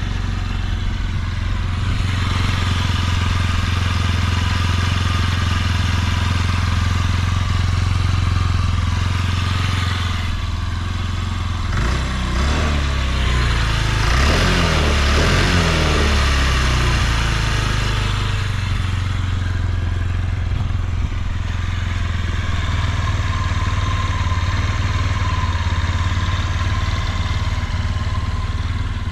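Honda Giorno Crea AF54 scooter's 50 cc four-stroke single-cylinder engine idling steadily, revved up and down a few times about midway, then settling back to idle. It runs without any abnormal noise.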